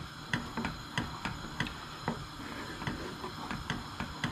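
Wooden spoon stirring parsley sauce in a stainless steel saucepan, knocking lightly against the side of the pan about three times a second.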